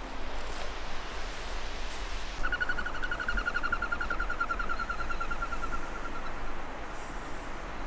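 Steady rush of river rapids. About two seconds in, a rapidly pulsed whirring tone joins it for about four seconds, drifting slowly lower in pitch before fading.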